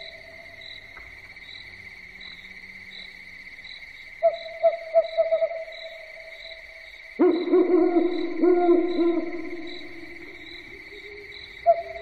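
An owl hooting at night: a quick run of about half a dozen hoots about four seconds in, then a louder, longer wavering call at about seven seconds that fades over roughly three seconds, and another run of hoots starting near the end. Insects trill steadily behind it.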